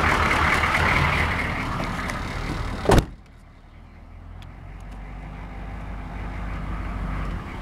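Diesel truck engine running at idle, then a door slams shut about three seconds in. After the slam the engine is heard muffled, as a low rumble from inside the cab, slowly growing louder.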